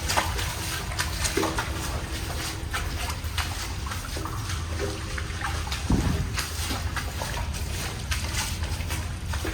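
Water trickling and sloshing in a tunnel, with irregular splashy steps and a steady low rumble underneath.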